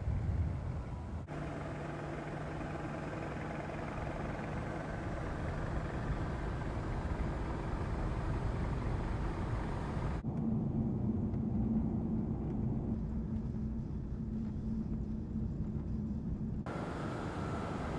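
Mercedes-AMG GT Coupé's twin-turbo 4.0-litre V8 running at a steady cruise, with tyre and road noise. The sound changes abruptly at cuts between shots, and in the second half it is duller, heard from inside the cabin.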